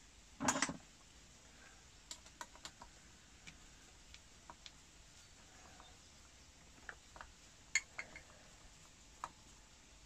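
Faint scattered clicks and taps of hands handling wires and plastic insulated crimp connectors at an electric water pump's terminals, after one brief louder sound just after the start.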